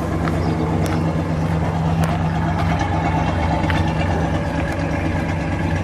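The factory Super Red Ram V8 of a 1957 Dodge Coronet idling steadily, heard at its dual exhaust outlets in the rear bumper.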